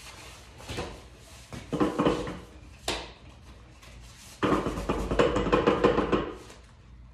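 Steel Olympic barbell rattling and knocking inside its cardboard shipping tube as the tube is shaken to work the bar loose, in bursts of rapid clatter with a hollow ringing tone. There is a short burst about a second in, a stronger one around two seconds, a single knock near three seconds, and a longer run of fast rattling from about four and a half to six seconds.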